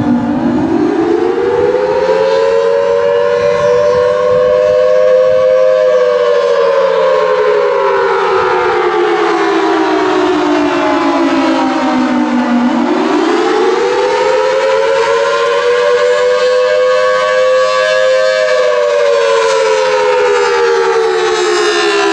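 Federal Signal Thunderbolt 1003 dual-tone rotating outdoor warning siren sounding the tornado warning (attack) signal. Its two-note chord climbs over a few seconds, holds briefly, then slides slowly back down, twice, about every 12 seconds.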